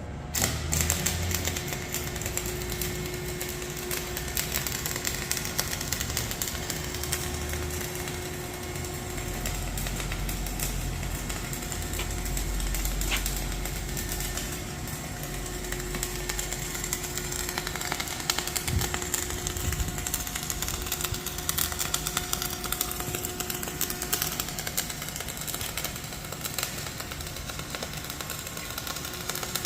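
Automatic welding machine at work: a continuous dense crackle over a steady machine hum and a low rumble that comes and goes.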